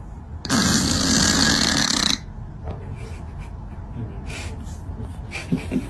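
A sleeping cat snoring: one loud, rough snore lasting about a second and a half, starting half a second in, then much quieter.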